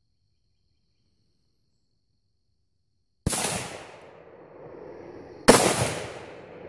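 Two gunshots about two seconds apart, the first a little over three seconds in, each a sharp crack that trails off in echo over about a second.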